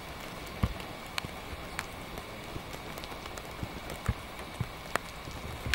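Steady rain falling, with irregular sharp taps of single drops striking close by.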